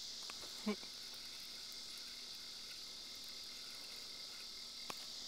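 Steady, high-pitched chorus of insects droning without a break, with a brief pitched sound under a second in and a single sharp click near the end.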